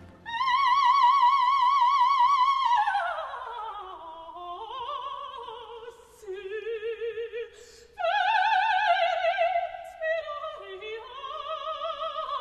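Operatic soprano singing an unaccompanied cadenza with wide vibrato: a long high held note, a slide down, then climbing runs and held notes, with a short break for breath a little past halfway.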